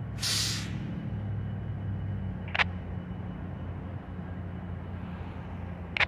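Diesel locomotives idling with a steady low hum, and a sharp burst of air hiss lasting under a second right at the start, like an air brake being released or set. Two short, sharp clicks come about two and a half seconds in and again at the end.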